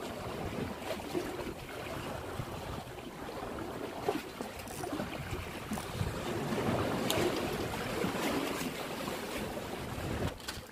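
Small sea waves sloshing and splashing close by, with wind on the microphone and a few light knocks.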